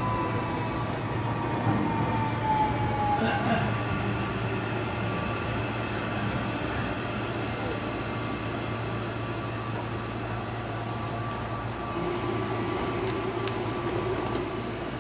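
Onboard sound of a JR Kyushu 305 series electric train: the whine of its VVVF inverter and permanent-magnet traction motors falls in pitch over the first few seconds as the train brakes, then gives way to a steady hum.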